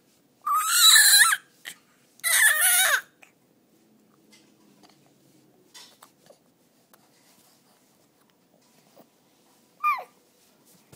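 Baby's high-pitched squealing vocalisations: two loud squeals about a second long in the first three seconds, then a short one near the end.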